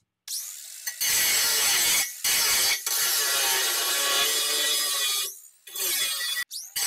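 Cordless angle grinder spinning up with a rising whine, then cutting steel angle iron with a harsh shrieking grind. The cut runs for several seconds with brief breaks, stops about five seconds in, then starts again twice in short bursts.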